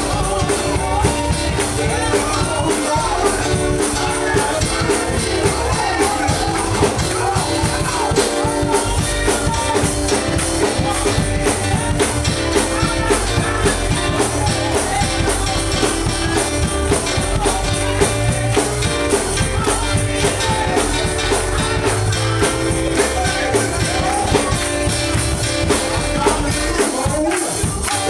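Live gospel band playing an up-tempo praise song, with drums keeping a steady beat and singing over the music.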